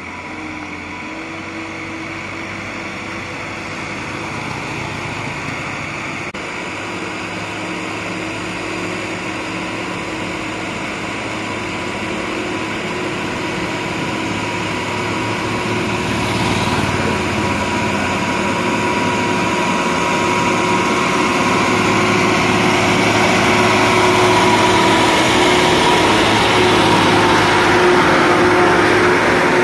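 Diesel engine of a laden Tata SE lorry running steadily as it approaches, growing louder throughout.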